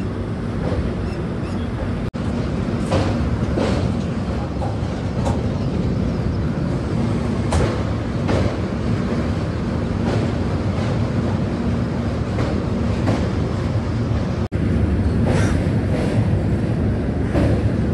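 LHB passenger coach running over a steel truss railway bridge: a steady rumble of wheels on rail, with pairs of clacks as the bogies cross rail joints.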